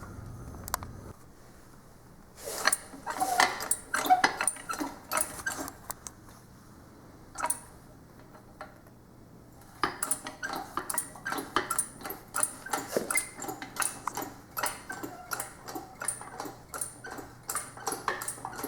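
Metal clinks and clicks from the hardware of a modified engine lift (cherry picker) being worked to lift a heavy flat-screen TV. A few scattered clinks come first; from about ten seconds in, quick sharp metallic clicks follow one another at a fairly regular pace.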